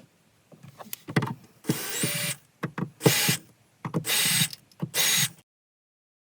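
Handheld power drill run in four short bursts about a second apart, with a few clicks and knocks before the first; the sound cuts off abruptly near the end.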